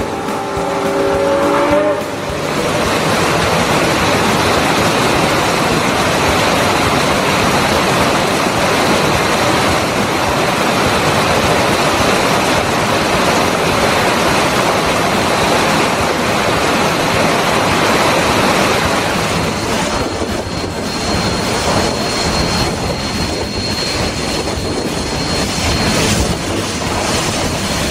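A steam locomotive's chime whistle, cut off about two seconds in, then a steady loud rush of a fast rocky mountain stream under the moving train. Near the end the rush eases and a thin steady high squeal of the train's wheels on the rails comes in, with faint clatter.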